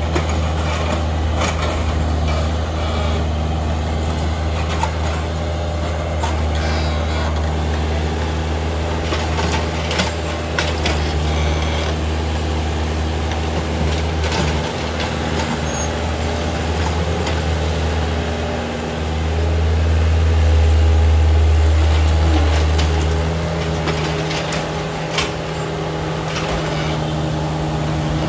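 Hyundai 55W-9A wheeled mini excavator's diesel engine running steadily while it digs, with scattered sharp knocks and scrapes of the bucket in soil and stones. About two-thirds of the way through, the engine grows louder for a few seconds and then settles back.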